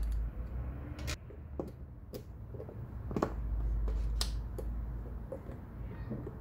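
Sharp plastic clicks and taps, roughly one a second, as 18650 lithium-ion cells are pressed into snap-together 3D-printed plastic cell holders. A low handling rumble runs through the middle.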